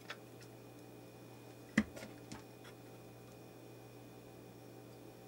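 Handling noise from a vintage Atlas sewing machine's motor housing being fitted together: a few small clicks and one sharp knock about two seconds in.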